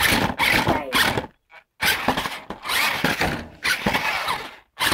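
RC monster truck's electric motor and gears whirring in about five short bursts of throttle as it drives on the floor, with brief silences between them.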